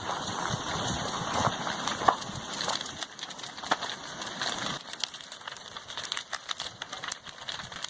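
Irregular crackling and popping over a steady hiss as a lava flow burns and crushes a house, a little louder in the first half.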